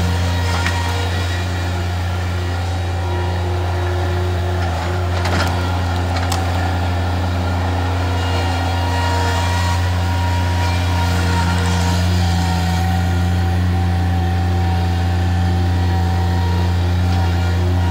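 Bobcat MT100 mini track loader's engine running steadily at a constant speed with a strong, even low hum. A couple of short knocks from the debris sound about five and six seconds in.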